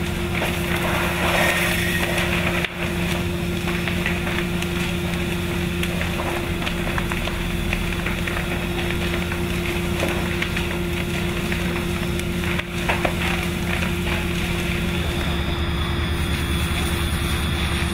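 A fire engine running steadily with a constant low hum, under the hiss of a hose spraying water onto burning wooden pallets. The drone changes about fifteen seconds in.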